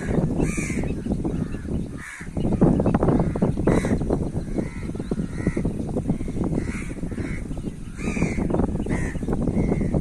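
Crows cawing repeatedly, about nine short harsh caws at irregular intervals, over a constant low noise.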